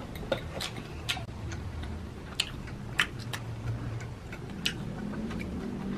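Close-up eating sounds of chicken nuggets being bitten and chewed: about a dozen sharp crunches and mouth clicks at irregular intervals, over a low steady hum.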